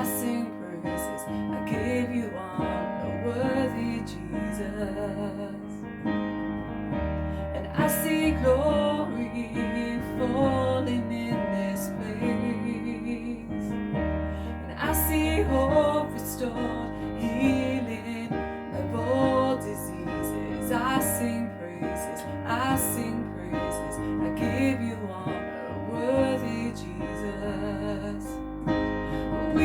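Contemporary worship song played on piano and keyboard over a steady bass, with a melody line carrying on through an instrumental stretch between sung verses.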